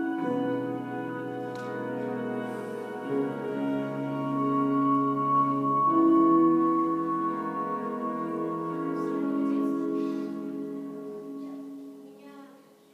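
Instrumental music with long held chords, fading out near the end.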